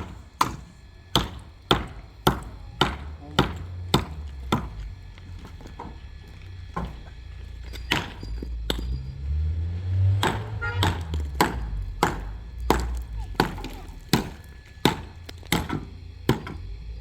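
A tool striking wood in a steady series of sharp blows, a little under two a second. The blows pause for a few seconds near the middle, then resume, over a low rumble.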